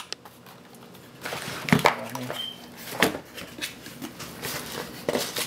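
A few scattered knocks and clicks with rustling, as a keyboard and its cardboard box and packaging are handled.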